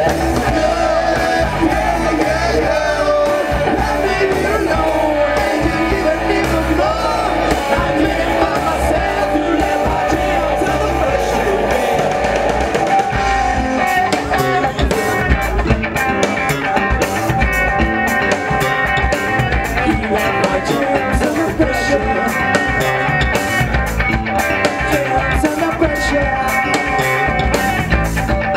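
Live band playing with electric guitar, bass guitar and drum kit, with sung vocals.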